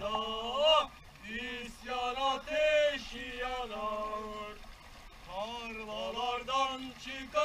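A man's voice singing or chanting in short phrases, some notes held steady.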